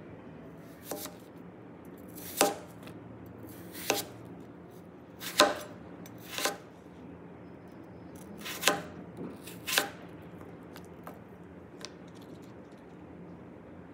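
Kitchen knife cutting food on a cutting board: about seven separate, sharp strokes roughly a second or so apart, with a few lighter taps, stopping about ten seconds in.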